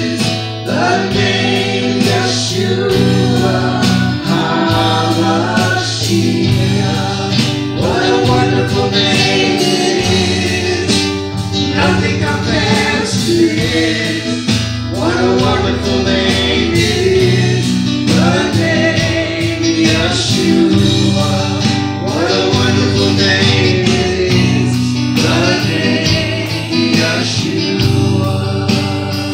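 Live worship song: voices singing over an acoustic guitar and a drum kit.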